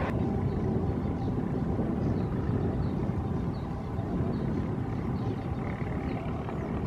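ALCo diesel locomotive approaching under power while still far off, its engine a steady low rumble; the exhaust smoke shows it working hard.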